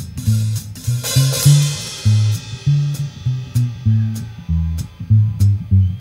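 Slapped upright double bass taking a rockabilly solo: a quick run of deep plucked notes with sharp clicks between them, with a drum kit behind it and a cymbal crash about a second in.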